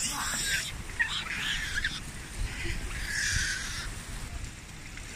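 Japanese macaques (snow monkeys) screaming during a fight, several separate screams over a few seconds.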